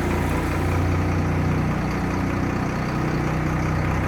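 1996 Blue Bird school bus diesel engine idling steadily while still cold and warming up.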